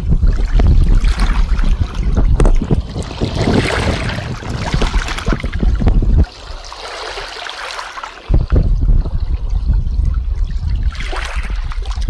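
Wind buffeting the microphone in low rumbling gusts, which drop away for about two seconds midway, over seawater trickling among wet rocks.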